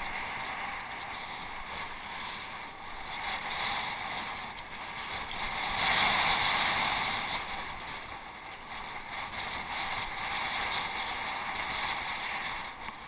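Bicycle riding noise on an off-road track: a steady rattling hiss that swells to its loudest about six seconds in, then settles.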